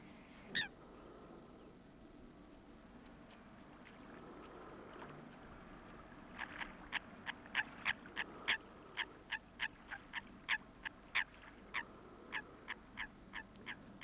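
Waterfowl calling: a regular run of short honking calls, two to three a second, starting about six seconds in. Faint high peeps from a smaller bird come before it.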